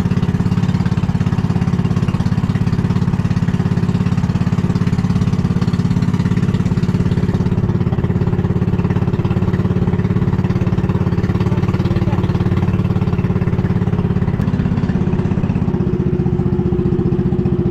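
Motorized outrigger boat's engine running steadily at cruising speed, a loud, even drone with a fast firing pulse.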